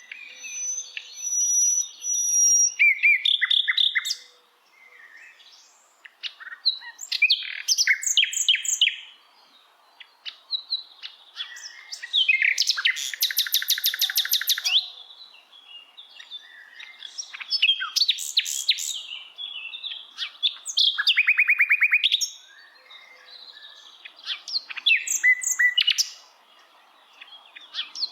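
Songbirds singing: bouts of high chirps and fast trills, each a couple of seconds long, with short pauses between them.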